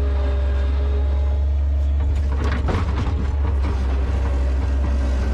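New Holland L150 skid steer's diesel engine running steadily while plowing snow, with a brief clatter about two and a half seconds in.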